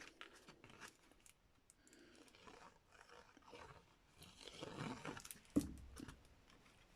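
Faint rustling of cardstock with scattered small clicks and taps as card layers are handled and glued, with a sharper tap about three-quarters of the way through.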